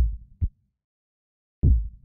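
Soundtrack heartbeat effect: a deep double thump, lub-dub, at the start, and the next beat coming in near the end, with silence between.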